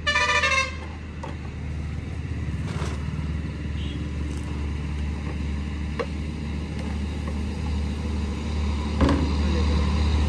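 A BharatBenz BS6 truck's diesel engine runs with a steady low hum. A horn sounds briefly at the start, and there are a couple of light knocks later on.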